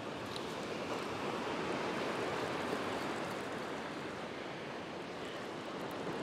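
Surf breaking and washing up a sandy beach: a steady rush of waves that swells slightly a second or two in, then eases.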